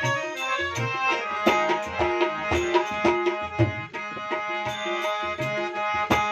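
Harmonium playing a Gujarati devotional bhajan melody over a steady hand-drum beat.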